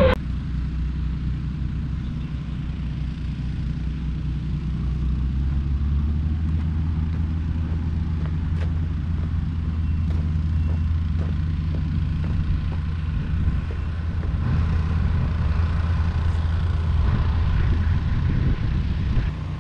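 Engine of a slow-moving vehicle running steadily, a low rumble without much change in pitch.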